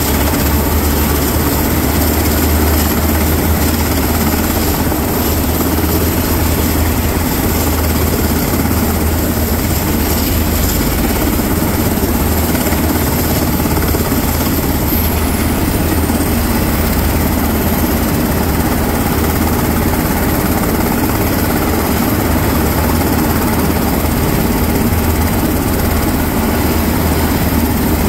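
Sikorsky S-70i Firehawk helicopter running on the ground during engine startup: its twin turboshaft engines give a steady high whine over a low rumble as the main and tail rotors turn.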